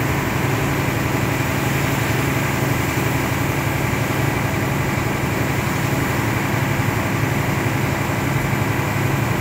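Fire truck's engine running steadily while driving, heard from inside the cab: an even low hum with road noise.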